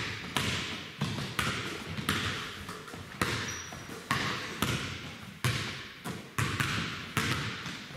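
Basketballs bouncing on a hardwood gym floor, about two bounces a second in an uneven rhythm, each bounce echoing in the hall.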